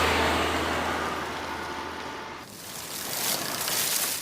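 Road vehicle passing: a low engine hum with tyre and road rush that fades away, cut off about two and a half seconds in, followed by a hissy rushing sound that swells near the end.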